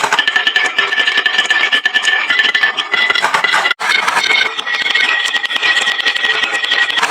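Many marbles rolling and clattering down a wooden marble run slope, a dense stream of clicks over a steady high rolling ring. The sound drops out for an instant about halfway.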